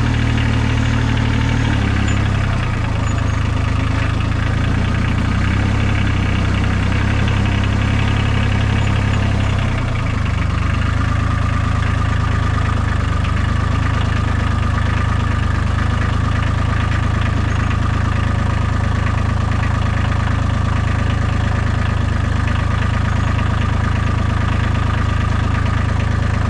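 Tractor engine idling steadily, its note shifting slightly about two and ten seconds in.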